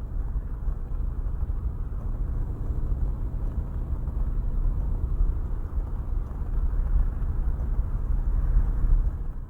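Low, steady rumbling background noise with no voices, fading out at the very end.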